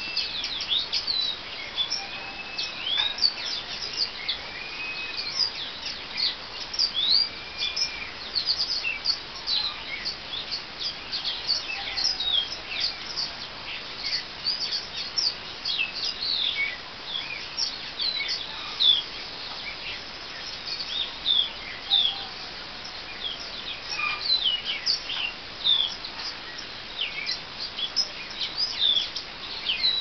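Many small songbirds chirping and calling at once in quick, overlapping high chirps, with a few longer arching whistled calls in the first several seconds.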